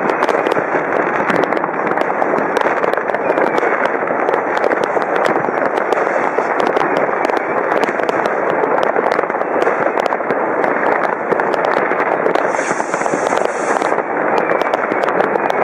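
New Year's fireworks and firecrackers going off all at once: a continuous, dense crackle of many overlapping bangs and pops with no break.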